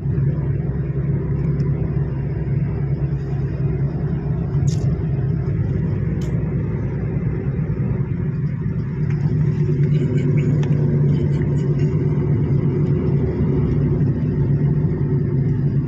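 Steady low drone of engine and tyre noise inside a car cruising at highway speed.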